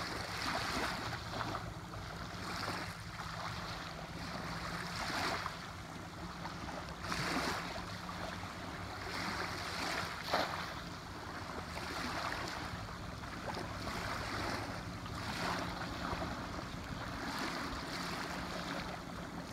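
Small waves lapping in shallow water at the shoreline, with wind on the microphone. About ten seconds in, a cast net lands on the water with one brief, sharp splash.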